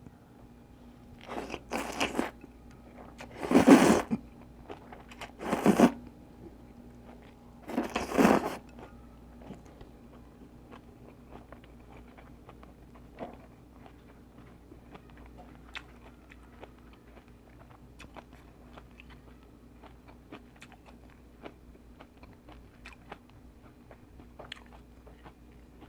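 A person eating a bowl of Vietnamese pho with bean sprouts close to the microphone. Four loud bursts of eating noise come in roughly the first nine seconds, then only quiet chewing with small clicks.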